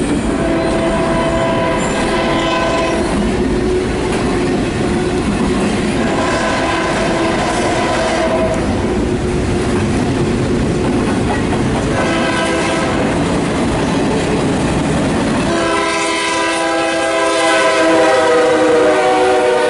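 CSX diesel locomotive air horn sounding two long blasts, a short one and a final long blast, the standard grade-crossing signal, with the last long blast loudest as the locomotive passes close by. Under the first three blasts runs the steady rumble and wheel clatter of a passing double-stack intermodal train, which drops away about three-quarters of the way through.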